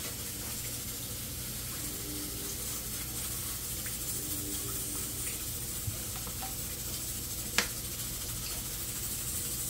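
Cooking oil poured from a plastic bottle into a pot, over a steady hiss from the kitchen stove; one sharp click about three-quarters of the way through.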